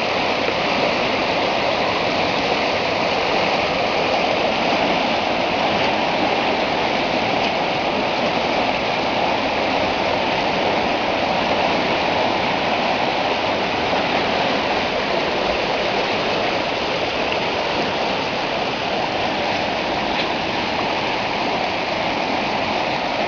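Floodwater rushing steadily, a continuous even wash of water noise with no breaks.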